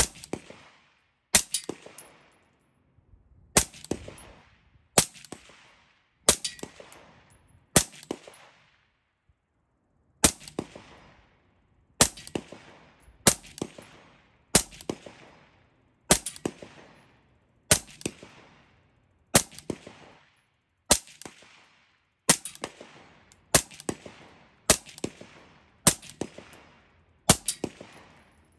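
Suppressed AR-15-pattern rifle fired in slow, steady semi-automatic aimed shots, about twenty in all, roughly one every second or so, each followed by a short fading echo, with a brief pause about a third of the way in.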